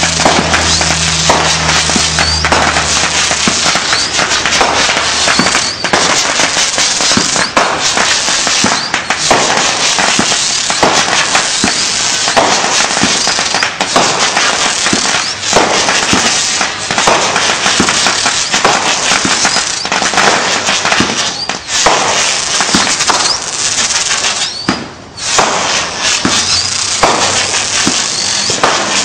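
Continuous barrage of aerial fireworks: many rapid bangs packed closely together, loud throughout, with a brief lull about twenty-five seconds in.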